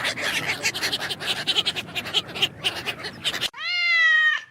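A cat meowing once in a drawn-out, clear call about a second long, near the end. It comes after a few seconds of dense crackling and chattering noise from another source.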